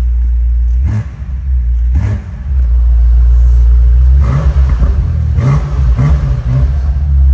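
BMW M8 Competition's 4.4-litre twin-turbo V8 idling with a deep, bassy note. It is revved with two short throttle blips in the first couple of seconds, then a quick run of repeated blips from about four seconds in.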